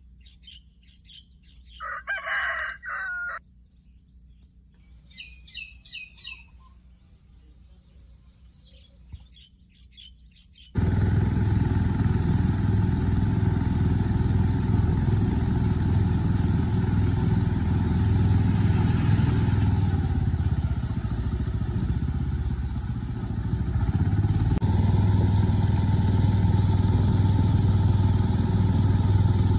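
A rooster crows once, with small birds chirping and a steady high-pitched insect drone in the background. About eleven seconds in, a loud steady engine-like noise with a low hum cuts in abruptly and continues.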